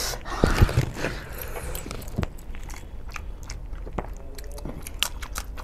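A man chewing a mouthful of rice and chicken curry eaten by hand, close to the microphone, with irregular wet clicks from the mouth.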